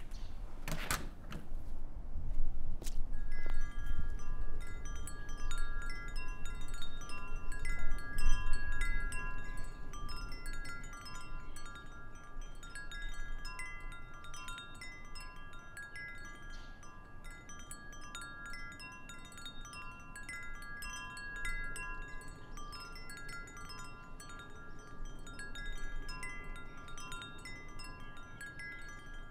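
Wind chimes ringing, clear high tones struck in a loose, wandering pattern, over a low rumble that fades after the first ten seconds or so. A couple of sharp knocks come just before the chimes begin.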